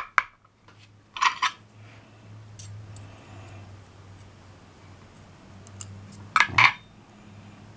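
Small metallic clicks and clinks of lock pins and a thin steel tool against a disassembled pin-tumbler lock housing as the pins are worked out. There are two short bursts of clicks, about a second in and again near the end, over a low steady hum.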